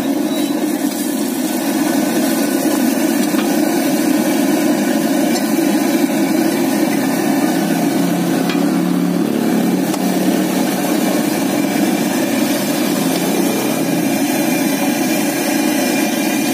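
Martabak telur frying in shallow oil on a flat iron griddle: a steady, loud sizzle over a constant low rumble.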